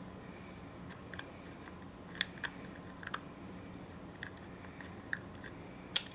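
Screwdriver and small screw clicking and scraping as the screw is driven into a mini PC, with a handful of separate sharp clicks, the loudest near the end.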